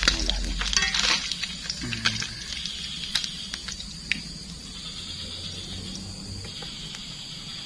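Small fish frying in hot oil, a steady sizzle with scattered pops and crackles, loudest in the first couple of seconds.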